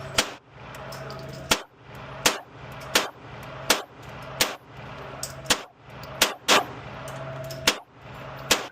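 Pistol fired in a slow string of about ten shots, roughly one a second, with a steady low hum between them.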